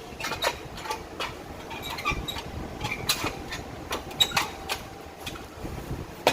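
Hammer blows on metal during front axle reassembly: a series of sharp knocks at uneven spacing, some with a short metallic ring.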